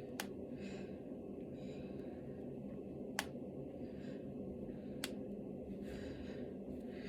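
Finger knuckles being cracked: three sharp pops, a few seconds apart, the middle one the loudest.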